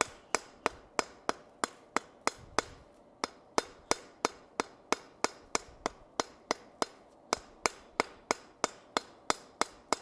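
Hand hammer striking a hot steel rivet on the anvil, peening it down to join the halves of a pair of blacksmith tongs. The light, even blows come about three or four a second, each with a short metallic ring.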